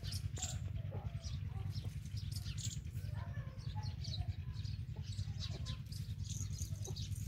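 Small birds chirping over and over in quick short notes, above a steady low rumble.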